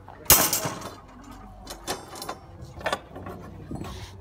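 Thin steel rebar clanking and scraping against a steel rebar-bending plate and wooden workbench as a hand-bent stirrup is handled and a new rod is set on the pins. A sharp clatter about a third of a second in is the loudest, followed by several lighter knocks.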